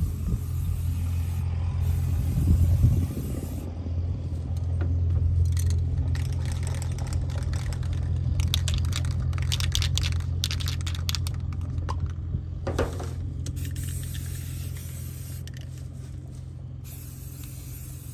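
Aerosol spray paint cans hissing in short bursts, with scraping and handling noise, over a steady low rumble. The spraying is thickest in the middle of the stretch.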